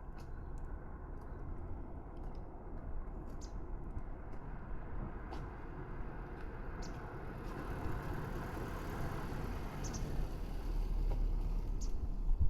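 Steady low rumble of outdoor background noise, like distant road traffic, growing louder near the end, with a few brief high chirps scattered through it.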